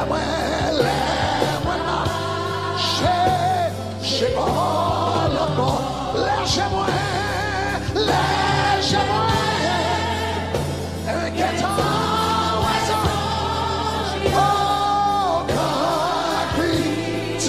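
A man sings a Haitian Creole gospel worship song over live accompaniment, his voice held and wavering on long notes.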